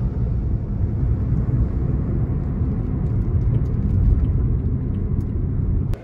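Steady low road rumble inside a moving car's cabin, cutting off abruptly near the end.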